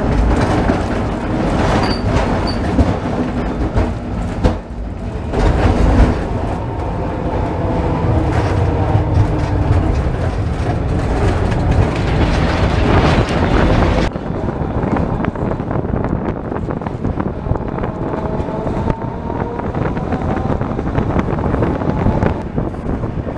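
Historic tram running along its track, heard from on board: steady running noise of the car on the rails. About two thirds through the sound turns suddenly duller, and over the last few seconds a faint whine rises slowly in pitch as the tram gathers speed.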